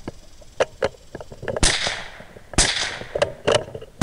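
Two suppressed rifle shots, about a second apart (roughly 1.6 s and 2.6 s in), each a sharp crack with a short fading tail, with lighter clicks and knocks between them.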